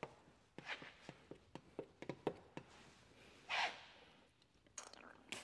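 Faint scattered clicks and squeaks of a plastic squeegee working wet paint protection film against a painted steel bumper, with one short breathy hiss about three and a half seconds in.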